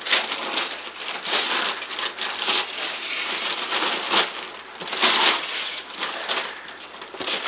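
Wrapping paper being torn off a gift box and crumpled by hand: a run of irregular rustling rips and crinkles.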